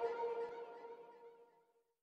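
Tail of electronic intro music: a sustained synth chord fading out in about the first half second, then silence.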